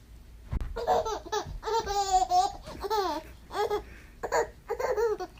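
Baby laughing and squealing in a string of short high-pitched bursts, with one longer wavering squeal about two seconds in.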